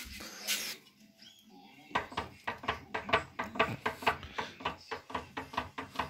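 Rapid metallic clacking, about four strikes a second, starting about two seconds in, as the Nissan Navara's diesel engine is turned over by hand on the bench. The crankshaft is broken, which is the cause of the engine's knock.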